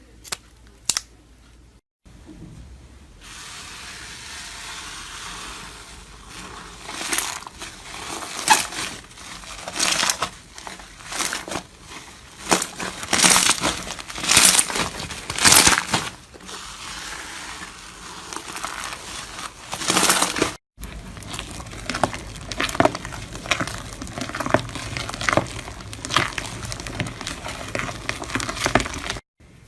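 Slime being squeezed and pressed, a run of sharp crackling pops and clicks over a steady hiss. The sound changes at two short breaks, about two seconds in and about two-thirds of the way through.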